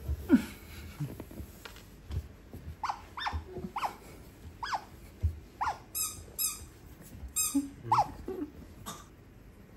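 Asian small-clawed otter calling: a string of short, high chirps that slide downward, about one or two a second, with a few quick runs of shriller chirps in the middle. A loud low bump just after the start.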